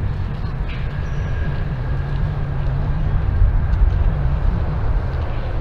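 Twin-engine jet airliner on its landing rollout just after touchdown: a steady low rumble of engines and rolling noise.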